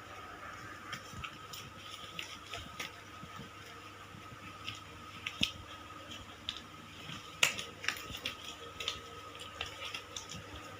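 Quiet room with a faint steady hum, broken by scattered small clicks and knocks; the sharpest click comes about seven and a half seconds in.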